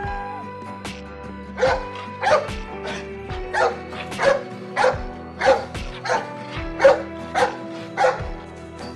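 Dog barking in a steady series of about eleven short barks, a little under two a second, starting about a second and a half in, over background music.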